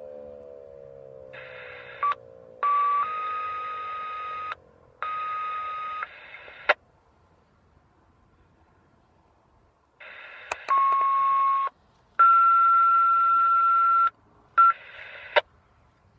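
A Federal Signal 2001-130 tornado siren winding down, its pitch falling and fading out in the first two seconds. Then a radio scanner carries a run of short transmissions as the fire departments report the siren test: bursts of radio static with a steady beep tone in each, each cut off by a squelch click. A few seconds of quiet fall between the third and fourth bursts.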